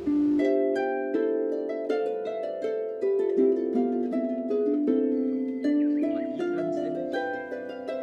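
Background music: a melody of quick plucked string notes, several a second.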